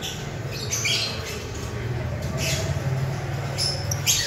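Caged lovebirds giving a few short, shrill chirps about a second in, midway and near the end, over a steady low hum.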